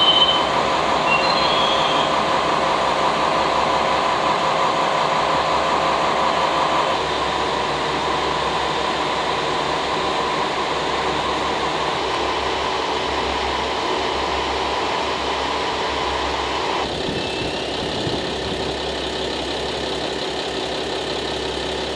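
Diesel engines of a stopped JNR KiHa 40-series railcar set (KiHa 40/47) idling, a steady hum that shifts in tone about seven seconds in, with a few short high squeals in the first second or so.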